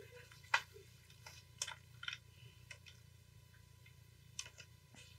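Faint, irregular clicks, about nine in five seconds, over a low steady hum.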